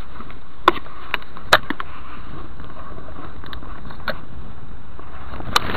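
Handling noise: a few sharp clicks and knocks, three in the first two seconds and one more near the end, over a steady background rumble.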